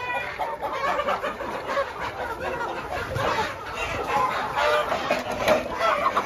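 A flock of hens clucking, many short calls overlapping, as they crowd in while feed is poured into their trough.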